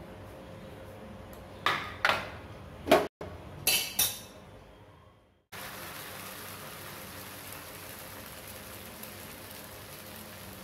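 Five sharp metal clanks of a steel ladle and vessel against an iron dosa tawa, each ringing briefly. After a short break comes a steady sizzle of thin wheat dosa batter on the hot tawa as it is spread with the ladle.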